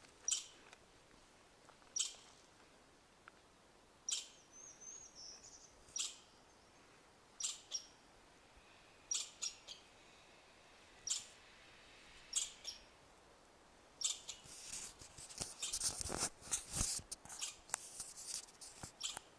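Chipmunk giving sharp, high chip calls, one every second or two, then a quicker, denser run of chips for the last few seconds.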